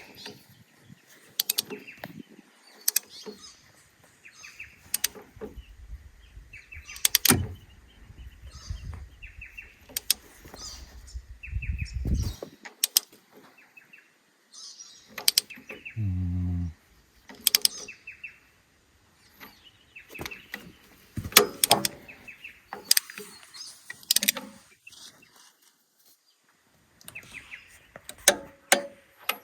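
Scattered clicks and metallic knocks of hand tools and small metal parts being handled during work on an excavator's injector pump, with a low rumble for several seconds in the first half and a brief buzz a little past the middle.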